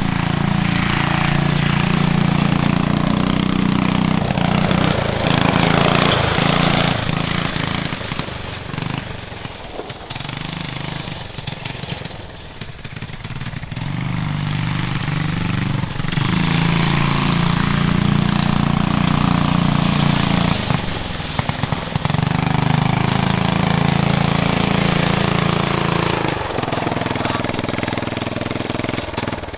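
Go-kart's small engine with a new header and muffler running at high revs as the kart is ridden. The throttle eases off several times and comes back on.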